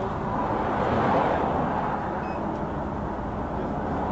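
Steady vehicle and road noise: an even, continuous hum without distinct events.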